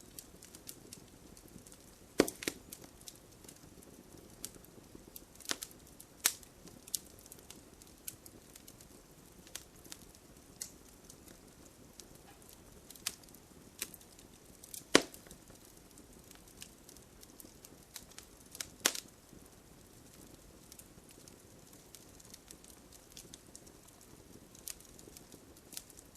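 Wood fire crackling in a fireplace: a soft, steady hiss broken by irregular pops and snaps, with a handful of louder snaps, the sharpest about halfway through.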